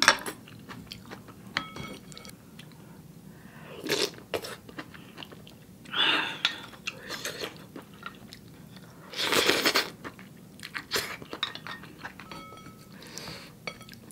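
Close-up eating sounds: three short slurps of noodle soup, about four, six and nine seconds in, with soft chewing and small clicks of a spoon against a bowl between them.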